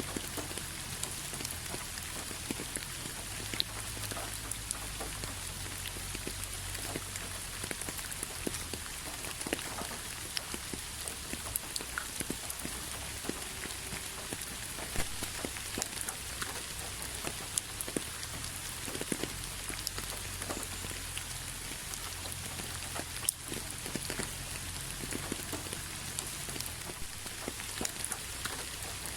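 Steady rain falling: an even hiss with many individual drops ticking sharply against a surface, over a faint low rumble.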